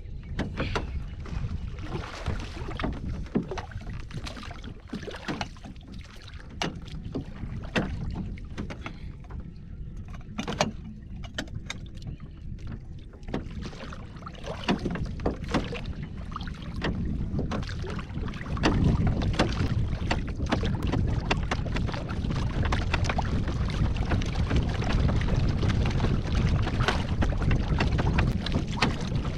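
Wind rumbling on the microphone over water lapping at a small wooden boat, growing louder about two-thirds of the way through. Scattered light clicks and taps come from hands baiting long-line hooks over an aluminium bowl.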